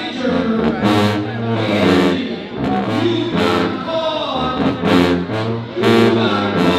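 Marching band brass section playing a fanfare: sousaphones, trumpets and trombones in loud held chords that shift every half second or so, with sharp percussion hits about once a second.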